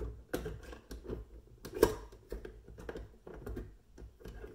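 Irregular clicks and knocks of a stand mixer's whisk attachment being worked into place on the machine, with one sharper knock a little under two seconds in; the attachment has not yet seated.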